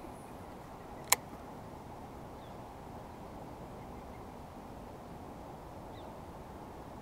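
Steady low outdoor background noise with one sharp click about a second in and a couple of faint high chirps.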